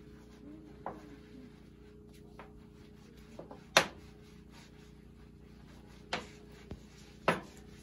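Outdoor bucket-and-sponge bath: a handful of short, sharp wet splashes and slaps, the loudest about four seconds in, over a faint steady hum.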